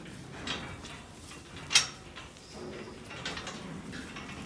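A few separate sharp knocks and clatters, the loudest about two seconds in, as lambs are handled for checking over.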